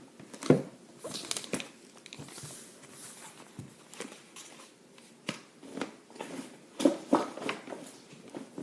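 Handling noise from a leather tote bag and the things in it: rustling and scraping with scattered sharp taps and knocks, the loudest about half a second in and again near the end, as items are moved around inside.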